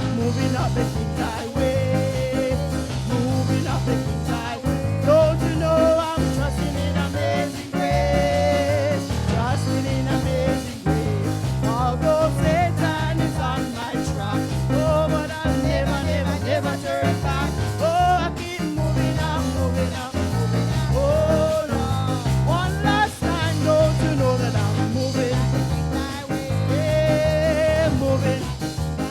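Worship song: a sung vocal melody over a band with a steady, repeating bass line.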